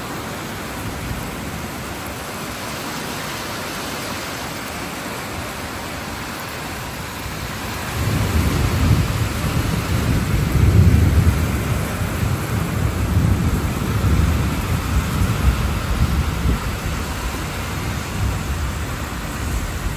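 Heavy rain falling steadily. About eight seconds in, a long low rumble of thunder builds, loudest a few seconds later, and keeps rolling under the rain.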